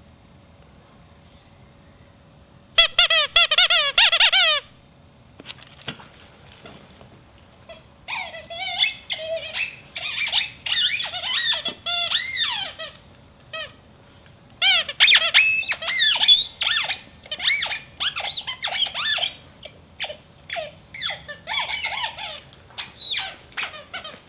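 Squeaky dog toy squeaking over and over as a bull terrier chews it, in runs of quick, wavering squeals separated by short pauses.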